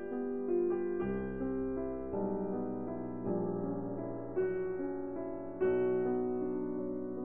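Soft background piano music, slow notes and chords struck about once a second and left to ring.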